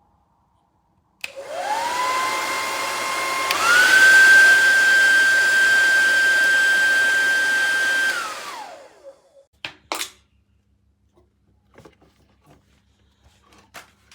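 Revlon RVDR5823 2000 W hair dryer switched on, its motor whining up to speed, then switched to a higher, louder speed a couple of seconds later and running steadily. About eight seconds in it is switched off and winds down, followed by a few sharp clicks.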